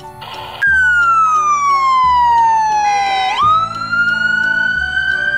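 Police car siren wailing. Its pitch falls slowly for about three seconds, jumps up and climbs again, then starts to fall near the end. It starts about half a second in, after a short hiss.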